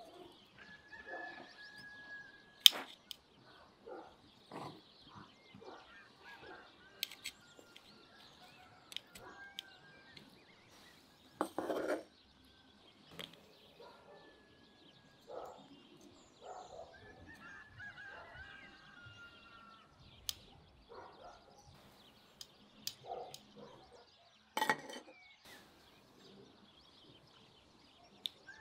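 Farmyard fowl calling now and then over scattered knocks and clatter of cooking work, with a louder half-second scrape about twelve seconds in and a sharp knock near the end.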